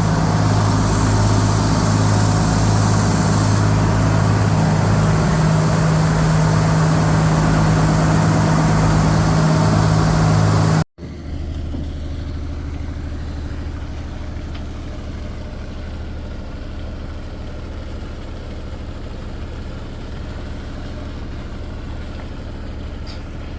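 Mycom compressor running steadily on a test run, a loud low machinery hum. About 11 seconds in the sound cuts off abruptly and a quieter, lower steady machine hum takes over.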